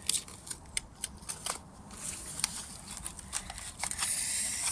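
Gift packaging being opened by hand: paper and plastic crinkling and rustling in many small clicks, with a denser steady rustle near the end.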